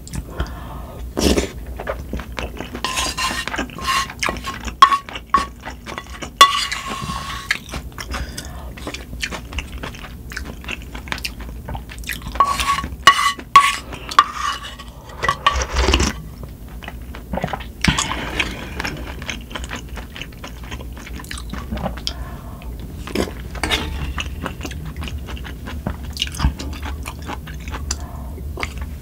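Close-up eating sounds of a person eating spicy sundae gukbap: wet chewing of meat and rice, with spoon and chopsticks clicking against the bowl. A low steady hum from wind and rain runs underneath.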